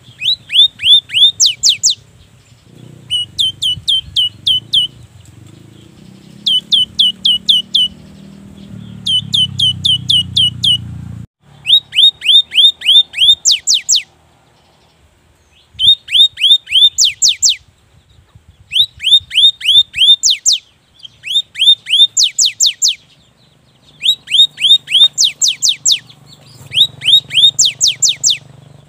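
Cinereous tit (gelatik batu) singing in about ten bursts, each a rapid run of sharply falling whistled notes, the long 'wucit-wucit' song, with short pauses between bursts.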